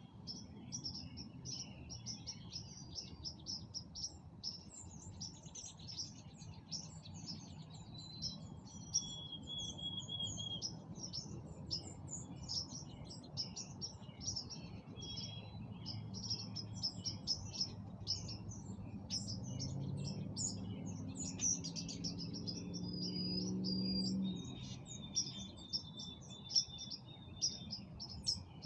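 A chorus of many songbirds chirping and singing without pause, with short steady whistled notes among the chirps. Underneath, a low drone with a slowly rising pitch grows louder through the middle of the stretch and cuts off suddenly.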